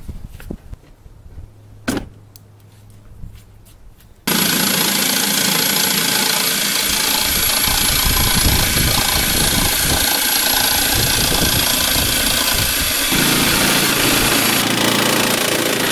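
A power tool starts abruptly about four seconds in and runs steadily and loudly, cutting through the Jeep Wrangler's plastic OEM rear fender flare. Before it, a single sharp click.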